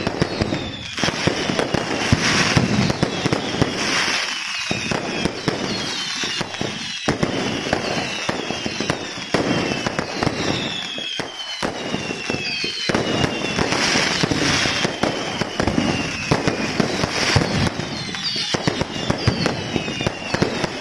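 Aerial fireworks display in a dense barrage: continuous rapid bangs and crackling, with many short falling whistles laid over it.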